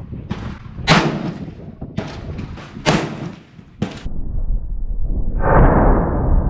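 Rifle shots at an outdoor range: two loud, sharp cracks about two seconds apart, with several fainter shots around them. From about five seconds in, a loud rush of wind buffets the microphone.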